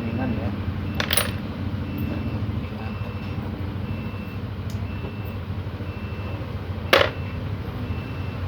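Two sharp metallic clinks, about a second in and again near the end, with a few fainter ticks between them, from metal parts and tools being handled during motorcycle engine disassembly, over a steady low hum.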